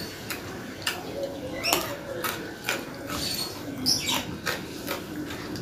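Close-up eating sounds: wet chewing and lip smacks, an irregular run of sharp mouth clicks several times a second, with a few brief high squeaks.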